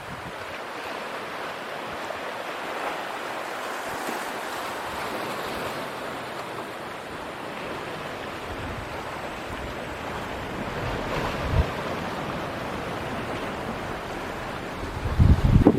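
Steady wash of waves in typhoon-whipped high seas, with wind on the microphone adding low rumbling gusts, briefly about eleven seconds in and more strongly near the end.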